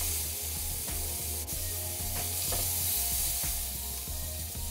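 Lamb kebabs sizzling in a hot grill pan while metal tongs click and scrape against the pan and skewers as they are lifted out, with a sharp click about a second and a half in.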